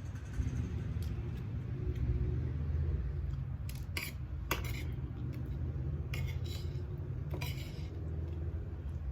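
Cutlery clinking and scraping against a plate while eating: a few sharp clinks about four seconds in, then short scrapes about six and seven and a half seconds in, over a steady low rumble.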